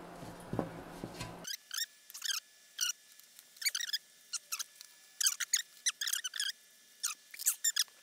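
Short, high, scratchy rasps and squeaks in irregular bursts as a hard drive is worked loose and peeled off the Velcro strips holding it down.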